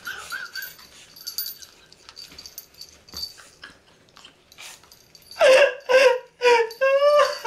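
A pug puppy whimpers briefly at the start. Near the end comes loud laughter in short repeated bursts, about two a second, ending in a rising drawn-out note.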